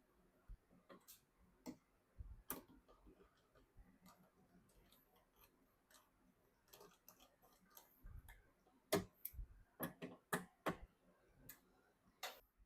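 Irregular small clicks and light knocks of computer hardware being handled and fitted, plastic and metal parts tapping together. The clicks come sparsely at first, then a cluster of sharper, louder ones comes about nine to eleven seconds in.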